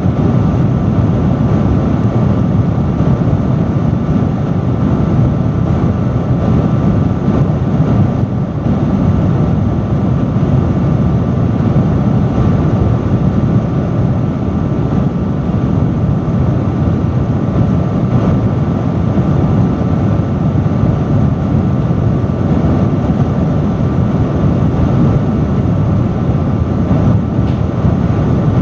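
Large industrial fan running steadily: a loud, even rush of airflow, deep and full in the low end, with a faint steady hum from the motor.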